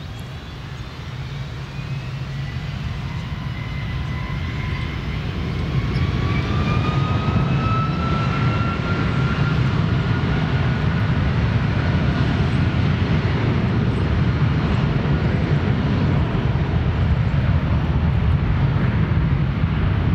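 Boeing 757-300 jet engines spooling up for takeoff: a whine rises in pitch over a low rumble, growing louder for about the first six seconds and then holding as a steady roar.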